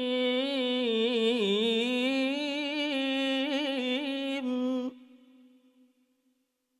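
A male qari chanting Quranic recitation (tilawah), holding one long drawn-out note with wavering, ornamented turns of pitch. The voice stops about five seconds in and leaves a brief fading echo.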